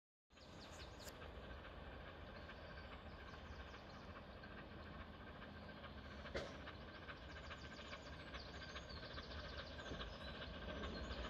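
Flying Scotsman, a three-cylinder LNER A3 steam locomotive, approaching from a distance: a faint rumble of the train that slowly grows louder, with one sharp knock about six seconds in.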